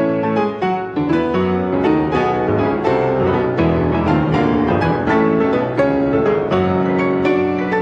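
Two grand pianos playing together: a dense, busy passage of many struck notes and chords without a break.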